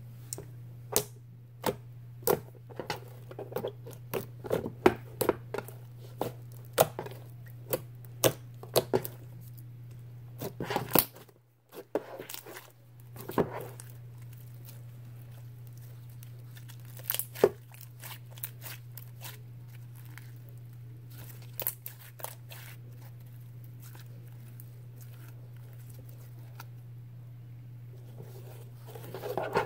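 Green clear slime with foam beads being squished, stretched and poked by hand, making sticky clicks and pops, many in the first half and fewer later.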